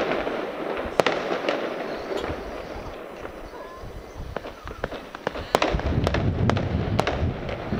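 Fireworks bursting: a sharp bang about a second in, then several more bangs in quick succession from about five and a half seconds, over a continuous crackling.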